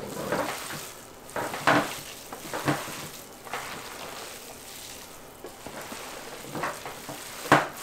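Rubber-gloved hands kneading cold ground venison sausage mix in a pan: steady wet squishing and crackling, with a few louder squelches.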